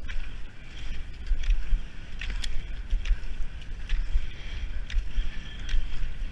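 Cross-country skis skating over packed snow: a rhythmic scraping hiss with sharp clicks about once a second, over a low rumble of wind on the microphone.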